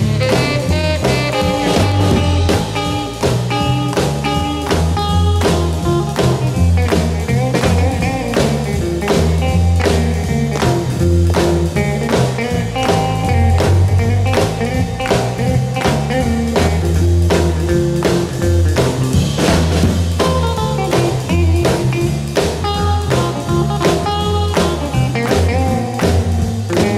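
Instrumental rock and roll music: guitar and bass over a steady drum beat, without vocals.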